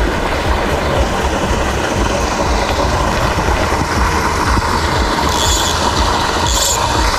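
Steady rush of a small waterfall spilling into a stream pool. Near the end come two short high buzzes about a second apart: a fly reel's click as line is stripped off it.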